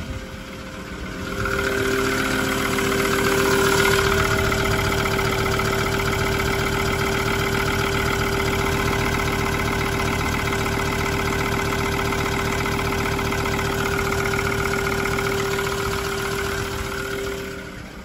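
Ford Ranger 3.2 five-cylinder diesel engine idling with a steady clatter, heard up close at the coolant expansion tank, which the owner says is noisy from combustion gas escaping past the cylinder head into the cooling system. He takes this for a head that needed skimming, not air pockets.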